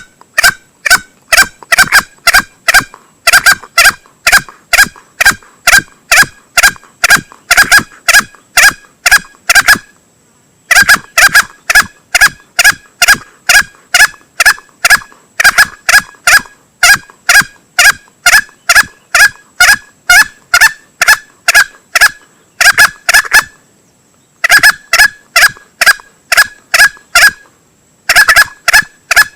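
Lure recording of a male green junglefowl's calls: short, sharp calls repeated rapidly, two or three a second, in long runs broken by brief pauses about ten seconds in and twice near the end.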